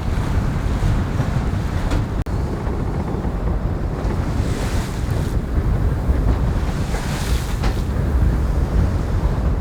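Wind buffeting the microphone over water rushing past the hull of a racing sailboat under way at sea, a steady heavy rumble. Hissing splashes of spray come through about halfway and again about three quarters of the way in.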